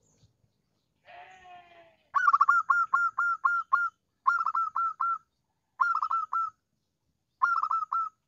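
Zebra dove (perkutut) song: one lower drawn-out note, then quick clipped coos in four bursts, about seven notes in the first and four in each of the others, with short pauses between. It is a lure call for drawing in rival doves.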